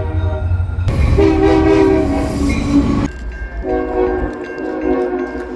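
Train horns sounding long, steady chords in a series of separate clips: one blast from about a second in, a second from a little past the middle to near the end, over the low rumble of the train.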